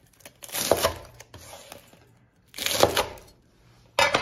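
Knife cutting through freshly deep-fried spring rolls on a cutting board: the crisp fried wrappers crunch and crackle three times, about two seconds apart, the last near the end.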